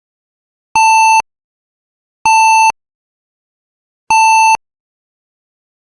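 Censor bleep sound effect: a steady electronic tone near 1 kHz sounding three times, each beep about half a second long, with silent gaps of one to one and a half seconds between them.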